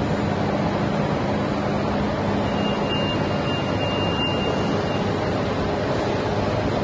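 JC-250 EPE foam sheet extrusion line running under test: a steady, even machinery noise with a low hum. A faint high tone sounds for a couple of seconds in the middle.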